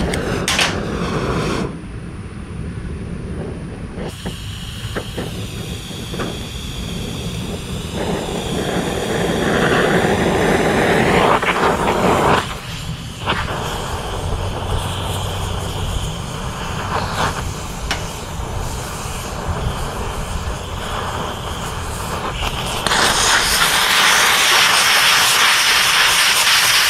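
Oxy-acetylene cutting torch flame hissing steadily as it heats a broken bolt in cast iron, the sound shifting in the first few seconds as the freshly lit flame is set. About 23 seconds in it turns louder and harsher as the cutting oxygen jet comes on, blowing the molten bolt out of the hole in a shower of sparks.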